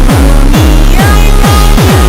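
Loud electronic dance music with a pounding kick drum at about two beats a second over a deep, steady bass, with synth tones above.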